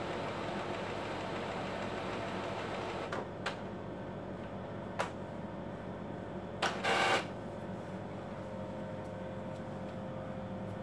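Epson L4160 ink-tank printer busy with an internal cycle: a steady mechanical whir that eases off about three seconds in, then a few sharp clicks and a short motor whine about seven seconds in.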